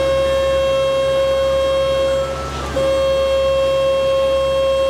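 Passenger boat's horn sounding two long, steady blasts, the first cut off about two seconds in and the second starting half a second later, over the low steady drone of the boat's engine.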